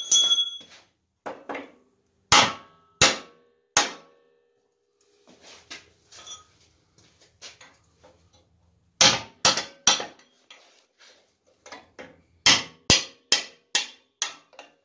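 Hammer blows on a steel tool held against a worn upper trailing arm bushing in the rear axle housing, knocking the old bushing out. Sharp metal strikes come in runs: three early, light tapping in the middle, then quicker runs of four and six near the end.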